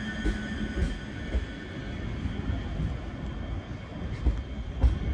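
ScotRail Class 385 electric multiple unit pulling away past the platform: a high electric whine and hum in the first second and a half fade, leaving a low rumble of the departing train. A few short dull thumps near the end.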